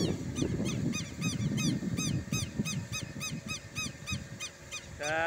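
Southern lapwing giving its alarm call: a rapid run of short, sharp, high notes, about four a second, over a low rumbling noise. The person filming takes the bird's anger as a sign of a nest nearby. Near the end a louder, lower honking call starts.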